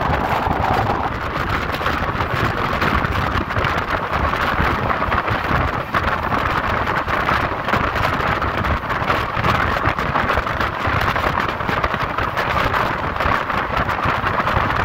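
Steady noise of an express train's coaches passing close by on the next track, mixed with the running noise of the train being ridden, heard from its open doorway. Heavy wind buffets the microphone throughout.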